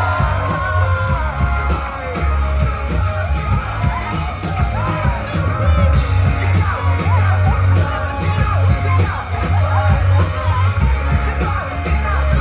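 Live rock band playing loud, with a singer's voice over guitars and a heavy bass.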